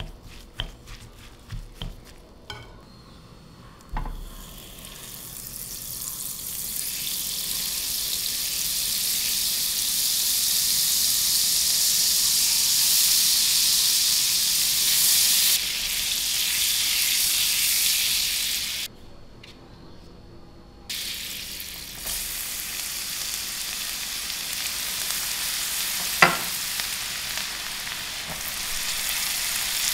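A few light clicks of wooden chopsticks tossing shredded potato in a glass bowl, then butter sizzling as it melts in a nonstick frying pan, the sizzle building over several seconds. After a short break, minced garlic frying in the bubbling butter, with one sharp tap near the end.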